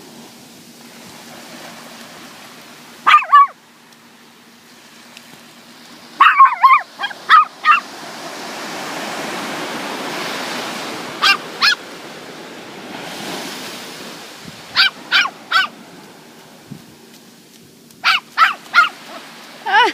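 A dog barking in short bouts of one to five barks, separated by pauses of a few seconds, over a steady background rush like surf.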